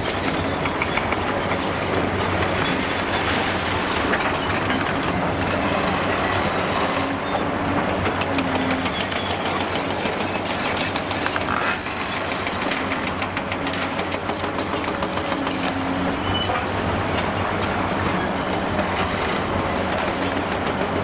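Large demolition excavator's diesel engine running steadily under load while its hydraulic crusher works through concrete, with constant dense crackling and clattering of breaking concrete.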